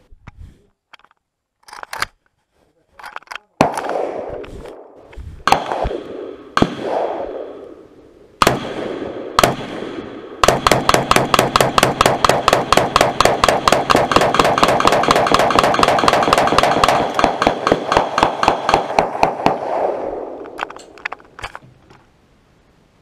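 Gunfire on a shooting range: a few light clicks of gun handling, then five single shots spread over about six seconds, then a long string of rapid shots, about six a second, lasting some nine seconds before trailing off.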